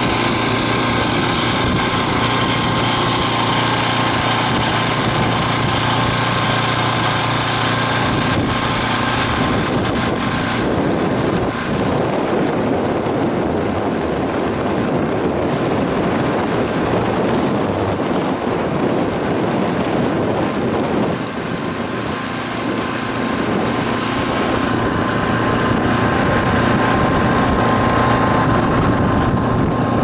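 Steady engine and road noise of a moving vehicle, with a constant hum running underneath.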